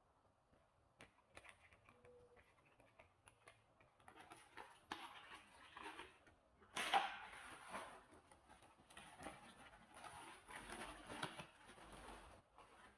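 Faint handling noises: light clicks, then rustling and crinkling with small knocks for most of the second half, with one sharper knock in the middle.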